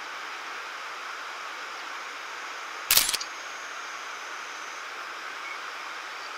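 A smartphone camera shutter clicks once, loud and sharp, about three seconds in, over a steady rushing background noise.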